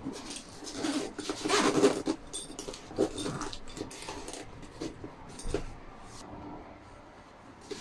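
Nylon zipper on a fabric tool bag being pulled open in several strokes, a buzzing rasp loudest about one and a half to two seconds in, followed by lighter scrapes and fabric handling.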